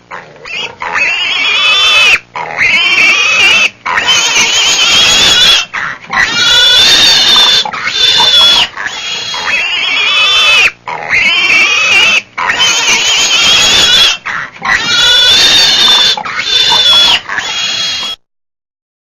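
An animal squealing loudly over and over, in long, wavering high-pitched cries with short breaks between them; it stops shortly before the end.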